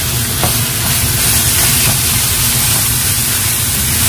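Ground pork and onion sizzling as they fry in a pan: a steady hiss with a low hum underneath and a few faint clicks.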